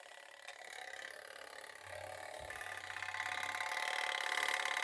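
Coded fire alarm pull station's geared code-wheel mechanism running after being pulled, a steady mechanical whirring with rapid fine ticking. It grows louder over the first few seconds, then holds.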